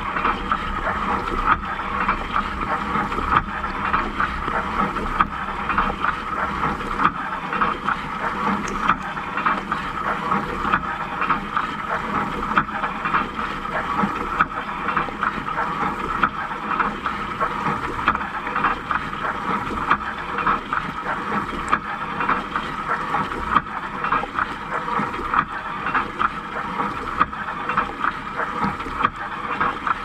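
Water jets from a Siemens dishwasher's spray arms pelting the dishes, racks and camera inside the tub during the wash cycle: a steady rush of spraying and splashing water.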